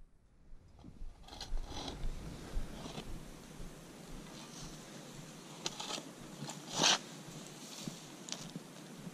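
A hand tool digging and scraping into soil in irregular strokes, the loudest scrape about seven seconds in.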